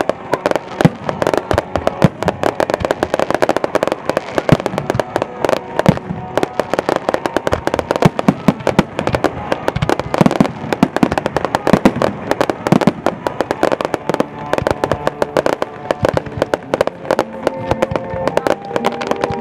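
Fireworks display: a rapid, continuous barrage of bangs and crackling from bursting aerial shells and low-level effects. Music plays underneath and comes up near the end.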